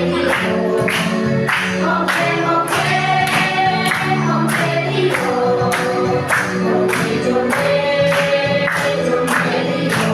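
A group of voices singing a song together over backing music, with a steady beat.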